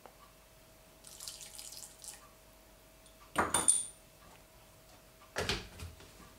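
Lemon juice poured from a small glass jar into the plastic bowl of a hand-blender chopper, a faint trickle. About three and a half seconds in, the glass jar is set down on a wooden cutting board with a couple of sharp clunks, and near the end the blender's motor head is clicked onto the chopper bowl.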